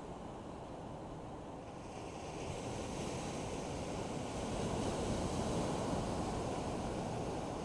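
Ocean surf washing in, a steady rushing noise that swells louder about two seconds in as a wave breaks.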